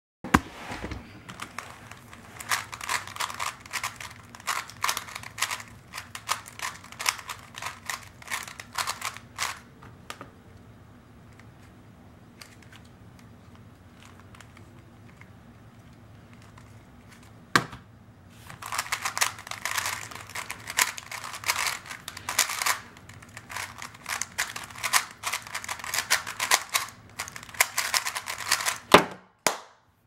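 A 3x3 speedcube, a Fangshi ShuangRen V2, being turned very fast by hand: dense rapid plastic clicking of the layers in two long stretches with a quiet gap in the middle. A single knock comes just before the second stretch and another as it ends.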